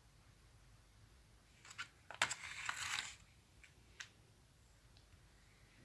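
Hard plastic blister packs being handled and set down on a wooden table: a few light clicks, a short plastic clatter about two seconds in, then a couple of single clicks.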